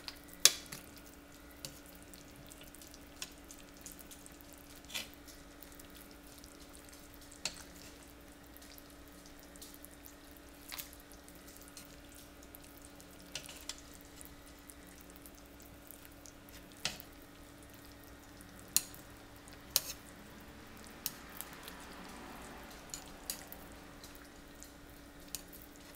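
Long two-pronged meat fork working through slow-cooked pork in sauce inside a Ninja cooker's pot. It makes scattered light clicks against the pot, a few seconds apart, with wet sounds from the meat, over a steady faint hum.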